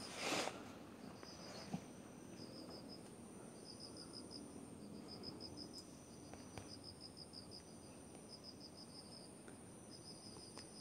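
Insects chirping faintly in short, quick pulse trains about once a second, over a steady very high-pitched tone. A brief brushing rustle sounds right at the start.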